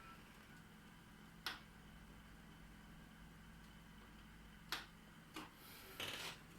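Near silence with a faint steady low hum from the running desktop computer and room, broken by three sharp single clicks: one about a second and a half in, two more near the end.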